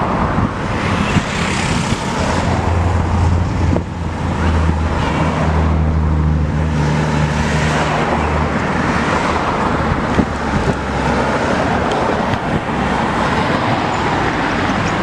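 Cars driving past on a city road: a steady mix of engine and tyre noise, with a low engine hum through the middle.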